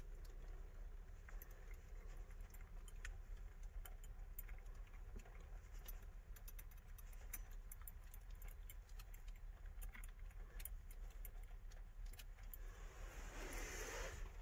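Faint jangling and clicking of a key ring at a car's steering-column ignition lock, with no starter cranking: the car will not start. A brief rustle comes near the end.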